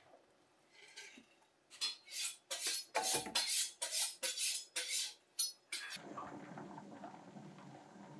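Glass canning jars clinking and knocking against each other and an aluminium pressure canner: a quick run of sharp clinks over about four seconds. About six seconds in the clinking stops and a steady low hum takes over.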